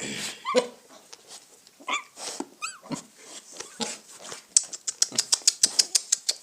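A young piglet squealing in short, pitch-bending cries. About four and a half seconds in, a rapid run of sharp clicks takes over, about five a second.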